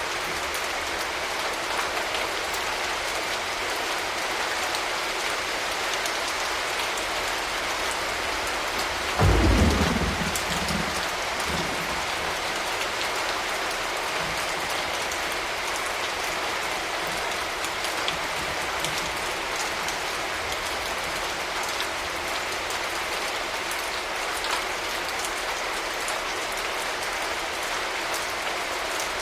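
Steady rain falling, with one loud clap of thunder about a third of the way in that rumbles low and dies away over a couple of seconds.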